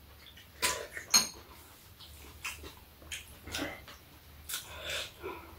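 Metal spoons clinking and scraping against ceramic bowls on a metal tray during a meal: a scattering of short clinks, one about a second in with a brief metallic ring.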